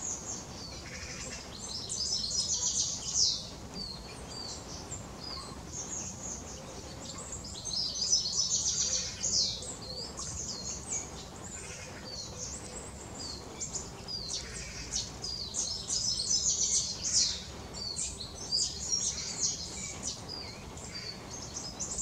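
Small birds chirping and twittering in high-pitched bouts of a second or two, the busiest about two, eight and sixteen seconds in.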